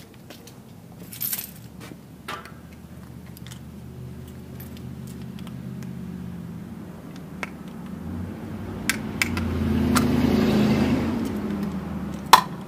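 Metal clinking and scraping as the stiff lid of a can of BG 44K fuel system cleaner is worked at by hand, with scattered clicks and a sharp snap near the end as it comes open. Under it, a vehicle passes, swelling and then fading in the middle and later part.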